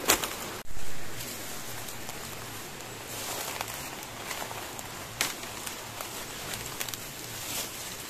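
Footsteps crunching and rustling through dry bamboo leaf litter and twigs, with scattered sharp crackles. A louder crack and a short burst of rustling come near the start.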